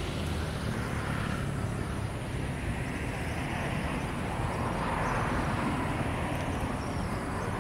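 Steady low rumble of distant city traffic, with one engine noise that swells and fades about halfway through as it passes.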